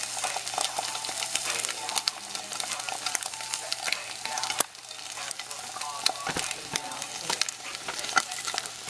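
A fried egg sizzling in a hot frying pan: a steady crackle dotted with many small pops, dipping briefly quieter about halfway through.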